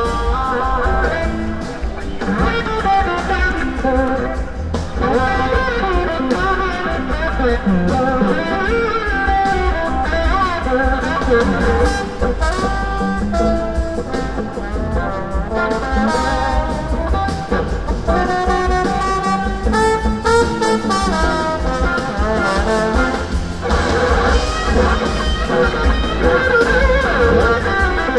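Live band playing a soul-rock song: electric guitar, keyboards and drums with a horn section of trombone and saxophones.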